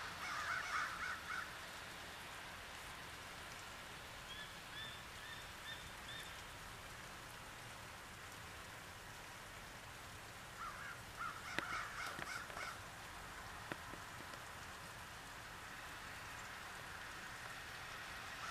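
Bald eagles calling in bursts of high, clustered notes over steady rain: one burst at the start, a run of about five short notes about four seconds in, and a longer burst around eleven seconds in.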